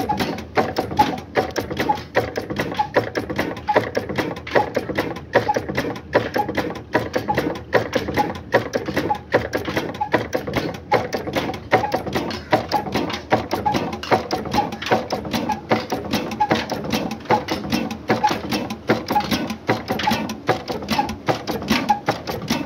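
Old Ruston Hornsby diesel engine running steadily, with a fast, even mechanical clatter of clicks and knocks.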